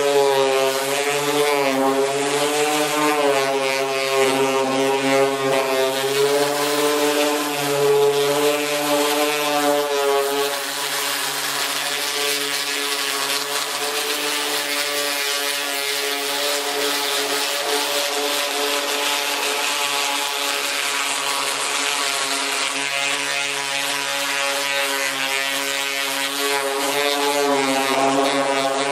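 Random-orbital sander running against a steel car hood, sanding the paint down to bare metal, with a steady gritty hiss. Its motor pitch wavers for the first ten seconds or so, as the pad is pressed and moved across the panel, then holds steadier.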